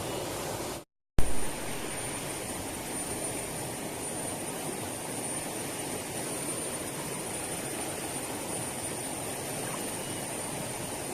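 Steady rushing outdoor noise by a river, flowing water and wind on the microphone, with a thin high steady tone running over it. About a second in the sound cuts out completely for a moment, then comes back with a sharp loud pop.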